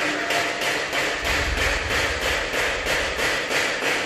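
Rapid, regular knocking, about three knocks a second, over a steady hiss.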